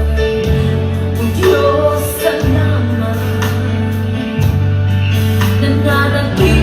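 Christian worship song: singing over held chords, with the low notes changing about every two seconds.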